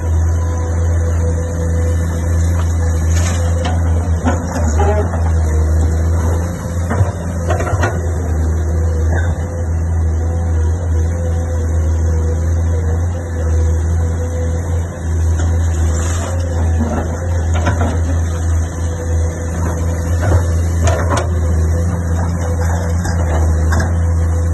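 Heavy machinery's engine running steadily with a deep hum, with scattered knocks and clanks.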